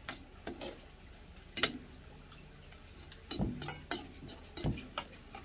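Metal spoon clinking and scraping against a stainless steel bowl while rice is mixed and eaten, in scattered light clicks, one sharper clink about a second and a half in.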